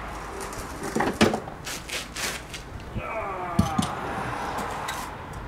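Metal clunks and knocks as a Ford MTX-75 gearbox is worked loose from a 2.0 Zetec engine's bell housing and pulled free. About three seconds in there is a drawn-out falling squeal with a couple of dull thumps.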